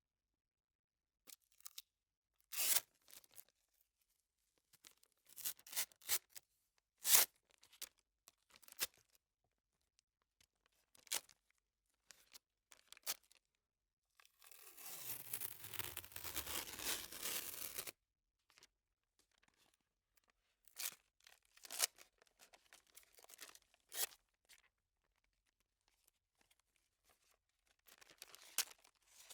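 Office adhesive tape pulled off a roll and torn in a series of short sharp rips and crackles, with one long steady pull lasting about four seconds midway through.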